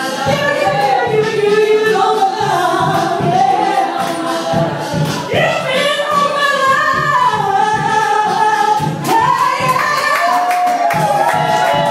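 Two women singing live into microphones through a PA, over music with a steady beat; the sung lines slide between held notes.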